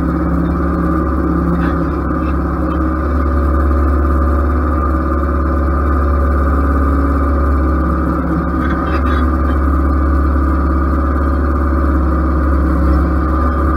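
Ariens riding lawn mower running steadily with its cutting deck engaged, mowing grass, heard up close from a microphone mounted on the deck. The engine and blade noise is a constant low hum.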